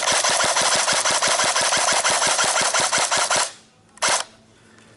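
Airsoft gun firing full-auto close to the microphone: one long burst of about three and a half seconds with a rapid, even rattle that cuts off sharply, then a short second burst near the end.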